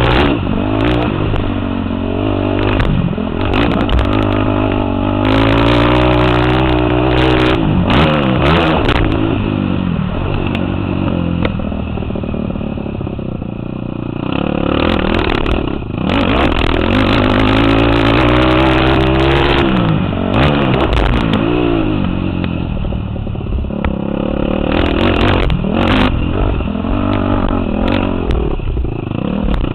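Sport quad (ATV) engine being ridden hard, revving up and dropping back over and over as the rider works the throttle. Short knocks and rattles come through at intervals.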